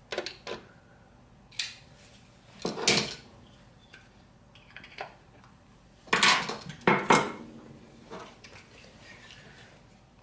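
Small tools clinking and knocking against a work surface as they are handled and set down, a handful of separate clatters with the loudest about three seconds in and again around six to seven seconds in.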